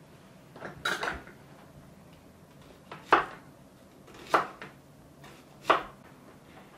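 Kitchen knife cutting through a peeled onion and knocking on a wooden cutting board: a double knock about a second in, then three sharp knocks about a second and a quarter apart.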